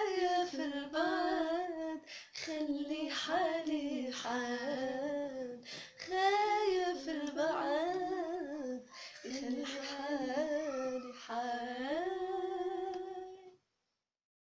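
A woman's voice humming a slow, ornamented melody without words, unaccompanied, in phrases with short breaths between them. It is the tune of a Darija love song. The humming cuts off abruptly near the end.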